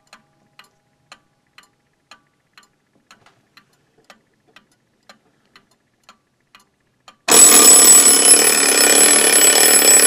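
Seth Thomas clock with an 89E movement ticking about twice a second, then about seven seconds in its alarm suddenly goes off with a loud, continuous ringing of the alarm bell. The ringing shows that the replacement alarm mechanism, with its good spring, is working.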